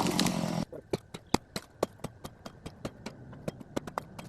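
A loud rushing noise cuts off abruptly under a second in, followed by a quick, irregular run of sharp clicks, about five a second.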